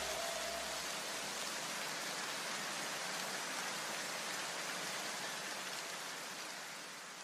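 Even, rain-like hiss of noise from the end of an electronic background music track. A few lingering notes die away in the first second and a half, and the hiss slowly fades out near the end.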